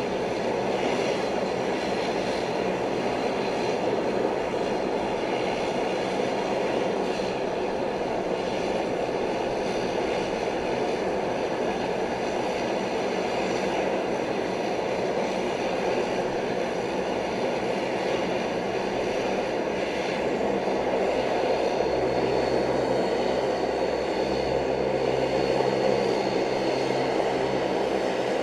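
Jet engines of a Boeing 777-200ER running with a steady rushing noise, a low hum swelling about two-thirds of the way through.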